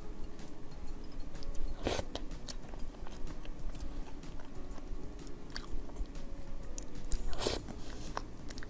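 Close-miked eating sounds: a spoon working into soft cream-filled cake and chewing, with many small clicks and two louder, longer sounds about two seconds in and near the end.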